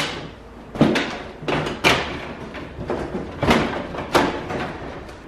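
Plastic front bumper cover and grille of a 2017 Chevy Colorado being pushed home by hand, giving several sharp knocks and snaps at irregular intervals as the clips seat.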